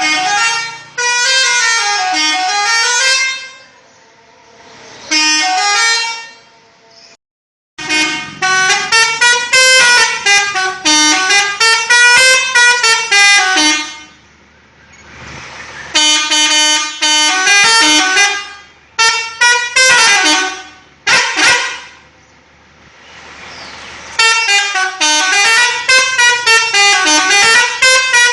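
Six-trumpet 'Pakistan'-type telolet musical air horn playing its melody in repeated bursts, the tones stepping up and down in pitch. The bursts last a few seconds each, with short pauses between them.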